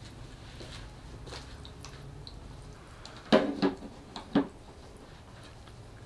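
Ultrasonic mist maker running submerged in a jar of water, its disc churning the surface into spattering, dripping droplets over a low steady hum. Three louder wet pops come between about three and four and a half seconds in.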